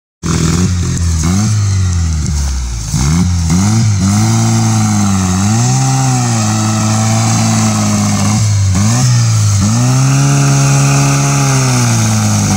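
Off-road cage buggy's engine revving hard under load, its pitch swinging up and down several times and held high for a few seconds at a stretch as the rear wheels spin in grass and dirt.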